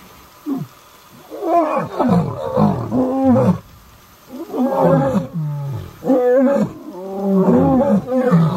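Male lion roaring to rouse the lionesses for the night's hunt: runs of calls that rise and fall in pitch, one after another, breaking off briefly about three and a half and six seconds in.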